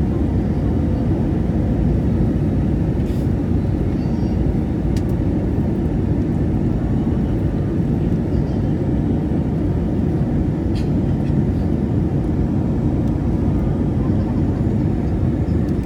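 Steady low roar of an airliner's turbofan engines and rushing air, heard inside the passenger cabin, with a few faint ticks.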